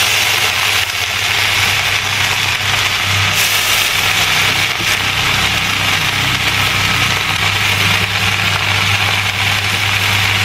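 Water spinach sizzling in hot oil in a wok: a steady hiss, with a low steady hum underneath.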